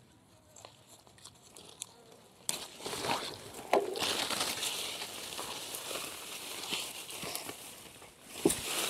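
Rustling and crackling of aronia bush leaves and twigs being handled while berries are picked by hand. It is faint at first, then becomes much louder and busier about two and a half seconds in, with sharp snaps mixed in.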